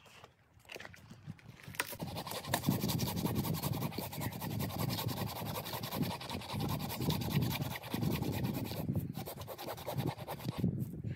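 Hand saw cutting through a fallen dead tree trunk: a steady rasping of back-and-forth strokes that starts about two seconds in, with a brief pause near the end.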